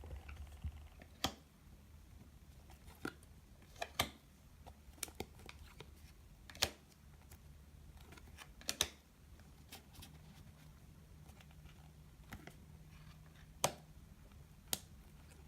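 Trading cards being handled and flipped through: a scattered series of sharp clicks and snaps, about ten in all, irregularly spaced, over a faint steady hum.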